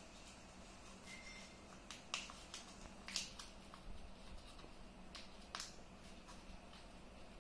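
Faint crinkling of folded paper as hands slowly turn an origami paper boat inside out, with several short, sharp crackles, the loudest about two and three seconds in. A faint low hum runs underneath.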